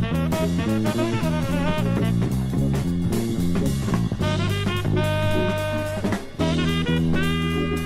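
Jazz band music with saxophone and brass over a drum kit: a busy run of quick notes, then long held horn chords from about halfway, with a brief break before a new chord.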